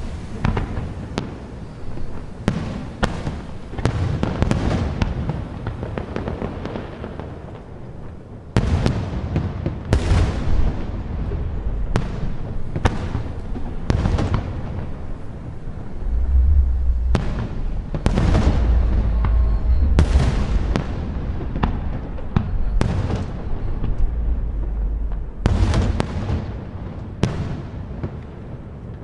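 Aerial fireworks shells bursting one after another, a dense run of sharp bangs and booms with a long rumbling tail. The low booming is heaviest about halfway through and keeps up for some ten seconds before the bursts thin out near the end.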